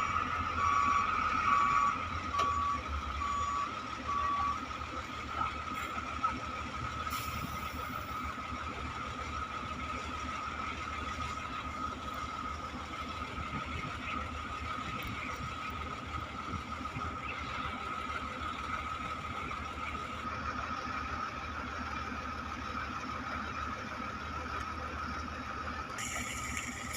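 Heavy earthmoving machinery at work: a reversing alarm beeps about six times at one pitch over the first four seconds, while the machines' engines run steadily throughout.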